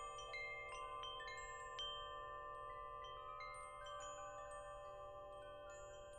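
Wind chimes ringing softly in the breeze: irregular strikes every second or so, each note ringing on and overlapping the others in a shimmering wash.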